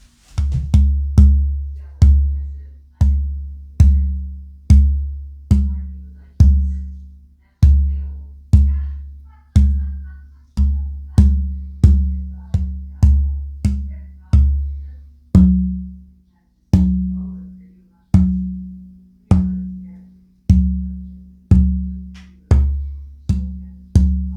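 Tap tone test of a torrefied AA-grade Adirondack spruce acoustic guitar top: the held plate is tapped about once a second, each tap giving a low ringing note that dies away.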